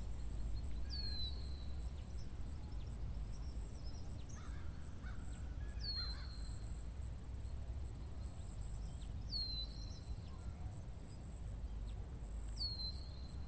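Open-field ambience: a bird gives a short downward-sliding call that repeats about every three seconds, over a steady high-pitched pulsing about twice a second and a low rumble.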